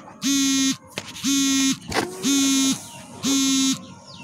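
An electronic buzzer beeping about once a second, each buzz a flat, steady tone lasting about half a second.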